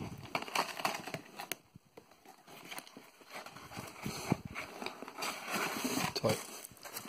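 Hands rummaging in a cardboard parcel of packed electronic parts: plastic wrapping crinkling and rustling, with many small clicks and knocks. There is a short lull about two seconds in, and denser rustling later on.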